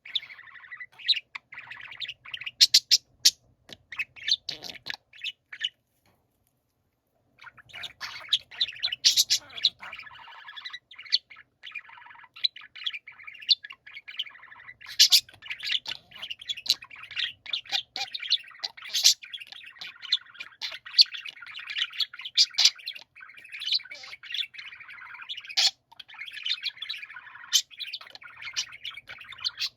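Several budgerigars warbling and chattering together: a dense, continuous mix of chirps, squawks and scratchy clicks. The sound cuts out completely for about a second and a half around six seconds in, then resumes.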